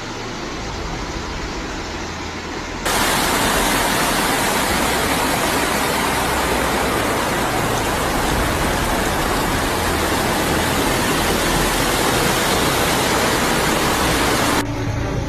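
Rushing floodwater, a steady noise that jumps abruptly to a much louder, fuller hiss about three seconds in and drops back just as abruptly near the end.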